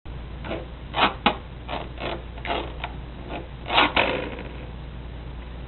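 A series of about ten short taps and scrapes over roughly four seconds as a fridge magnet is handled, with the loudest knocks about a second in and about four seconds in.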